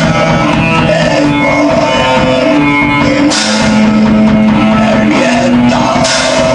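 Underground black metal demo recording: distorted electric guitars holding sustained chords over a drum kit, with cymbal crashes about three seconds in and again near the end.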